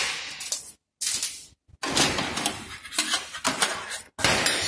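Clattering and scraping of a stud welding gun and small metal studs being handled on a steel workbench, in several short bursts of clinks and knocks with brief silent gaps between.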